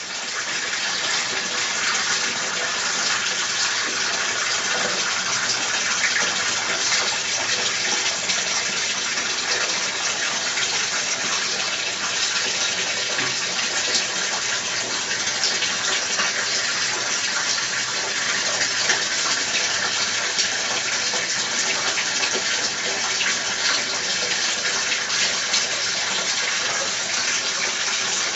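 Water running and splashing steadily into a fish pond, an even unbroken rush.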